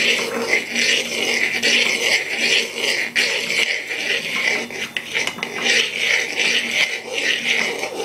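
Utensil stirring and scraping a foamy lye-and-oil soap mixture around a metal pot, in steady rhythmic strokes of about two a second.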